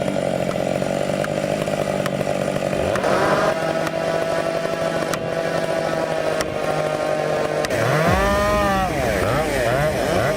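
Large Stihl two-stroke chainsaws running near full throttle in a cut. About eight seconds in, the engine pitch swings up and down as the saws rev and come off the wood.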